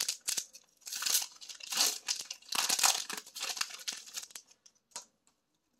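Foil wrapper of a Pokémon Team Up booster pack crinkling and tearing as it is opened and handled. It comes as a run of short crackly bursts that die away about five seconds in.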